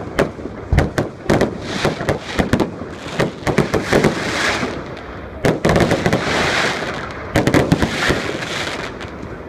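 Fireworks display: firework shells bursting in quick, irregular bangs, with crackling and hissing between them. The biggest clusters of bangs come about a second in, around five and a half seconds in, and near seven and a half seconds.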